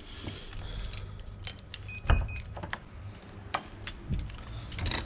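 Keypad-entry door being unlocked and opened: a short electronic beep with a loud clunk of the lock about two seconds in, then sharp clicks and knocks of the handle and door as it swings open.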